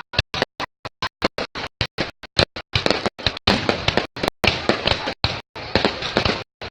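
Fireworks going off in a rapid series of sharp bangs, about five a second, thickening into dense crackling about three seconds in.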